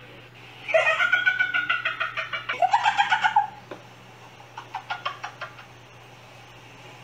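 A man's voice shouting into a spinning electric fan, the blades chopping it into a fast, fluttering warble, in two calls over about three seconds. Fainter fluttering bursts follow around the middle.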